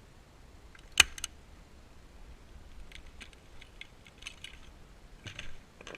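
Small hard objects being handled: one sharp click about a second in, then scattered lighter clicks and rattles.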